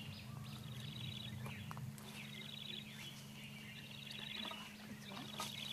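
Bird calling: a short, rapid, high trill repeated about four times, with a faint low steady hum underneath.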